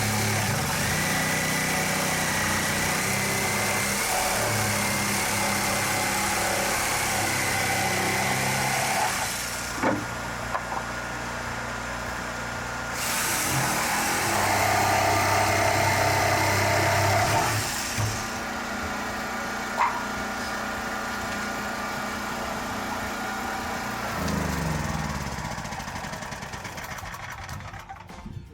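Electric power saw cutting through the cabin's wooden wall boards to open a hole for a window, its motor whining steadily and getting louder in two stretches of heavy cutting. Near the end the motor winds down and stops.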